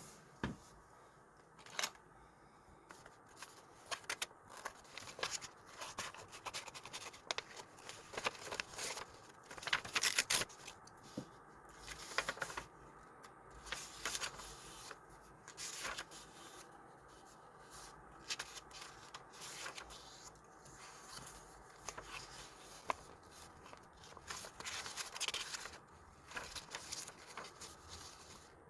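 Close, faint handling of paper and sticker sheets: irregular rustles, light taps and scrapes, with short pauses between them.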